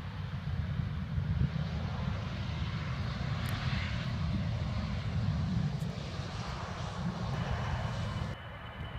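Airliner's engines as the aircraft passes: a steady rushing noise over a low rumble, loudest about four seconds in, then dropping off abruptly near the end.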